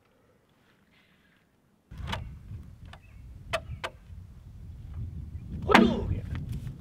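Near silence, then a low rumble of wind on the microphone starts about two seconds in, with a few light knocks of logs being handled. Near the end, a loud axe blow into a log rings briefly.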